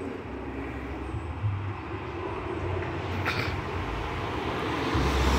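A road vehicle approaching along the street, its steady rumbling noise growing gradually louder.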